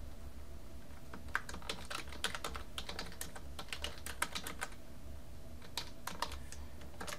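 Typing on a computer keyboard: a quick run of key clicks for about three seconds, then a few more keystrokes near the end, over a steady low hum.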